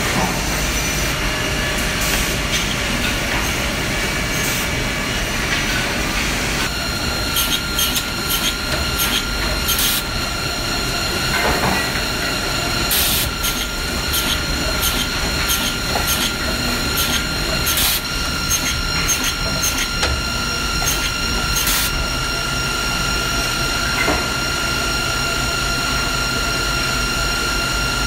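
Woodmaster WM-S260 high-speed optimizing defect cutoff saw running, its feed rollers and conveyor belts moving timber: a steady mechanical running noise with a high whine that sets in about seven seconds in, and brief sharp sounds every few seconds as it works.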